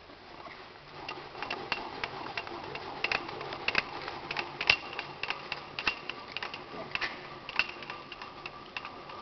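Irregular mechanical clicking and ticking, a few clicks a second, from the Felder combination machine's planer-table height handwheel and indicator being turned by hand. A faint, high steady whine sits under the clicks in the second half.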